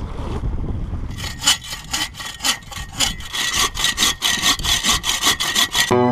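Hand saw cutting through a log in quick back-and-forth strokes, about four a second, starting about a second in.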